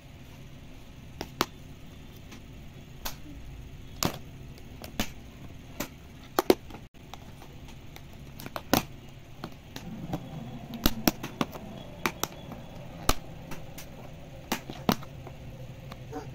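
Thin plastic food-tray lid being pried and peeled open by hand, giving irregular sharp plastic clicks and snaps over a low steady hum.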